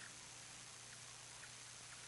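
Near silence: faint hiss and a low steady hum, with two faint ticks.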